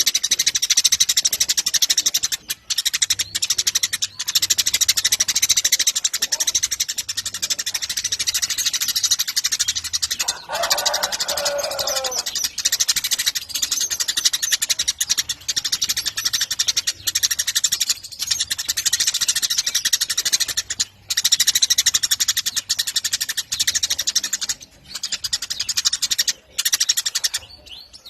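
Eurasian tree sparrow chattering: a long, fast, unbroken run of high chirps, with a few brief breaks. About ten seconds in, a lower call falls in pitch over about two seconds.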